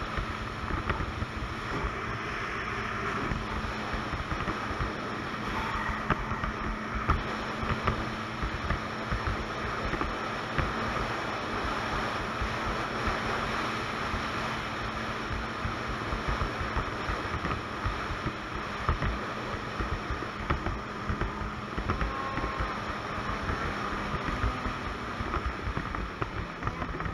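Ski-Doo Expedition 900 ACE snowmobile riding at a steady cruising speed, its three-cylinder four-stroke engine holding an even drone, with wind buffeting the microphone.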